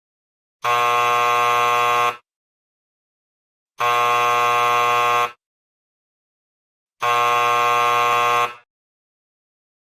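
Electric buzzer sounding three times, about a second and a half each, with about three seconds between them. This is the theatre's three-bell signal that the show is about to begin.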